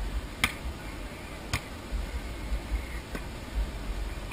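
Volleyball being hit by hand during a beach volleyball rally: two sharp slaps about a second apart and a fainter third one later, over a low rumble.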